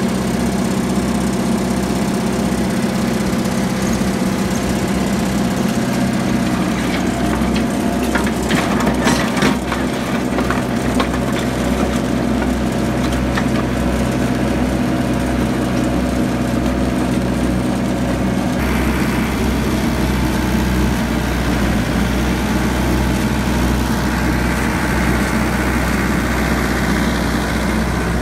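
Mahindra tractor's diesel engine running steadily under load while a rear box blade drags through slag gravel. Gravel scrapes and crunches under the blade, loudest for a few seconds about eight seconds in.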